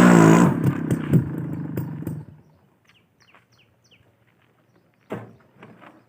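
Suzuki Max 100R's 98cc single-cylinder two-stroke engine running, its pitch falling and the sound fading out within about two seconds. Birds then chirp faintly, with a single sharp knock about five seconds in.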